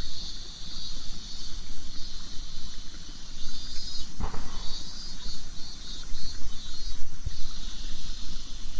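Cicadas singing in a high, pulsing chorus that swells and fades a few times a second, over a low rumble, with a single knock about four seconds in.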